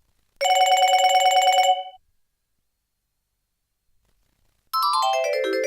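Fly SX240 ringtones played on a Nokia 220 mobile phone. First comes a rapid trilling, bell-like electronic ring lasting about a second and a half. After a pause, a melodic ringtone of quick falling and rising note runs starts near the end.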